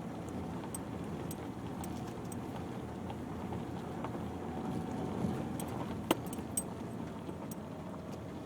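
Vehicle cabin noise while driving on a rough unsurfaced track: a steady low rumble with scattered small clicks and rattles, and a sharper knock about six seconds in.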